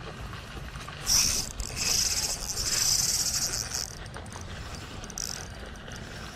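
Fishing reel clicking rapidly and high-pitched for about three seconds, starting about a second in, with a short weaker burst near the end.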